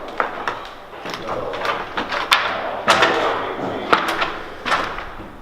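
Demolition work: a dozen or so irregular bangs, knocks and scrapes as debris and materials are handled, loudest about two and a half to three seconds in.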